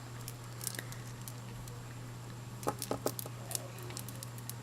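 A few light clicks and ticks from beads and small metal tools being handled, including hemostats clamping the cord ends, with a cluster of clicks about three seconds in over a steady low hum.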